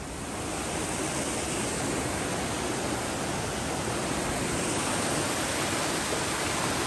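Mountain stream rushing over rocks in whitewater cascades, a steady noise of running water that grows louder over the first second.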